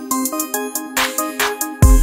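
Electronic background music: synth notes over a steady beat of sharp ticks, with a deep bass hit coming in near the end.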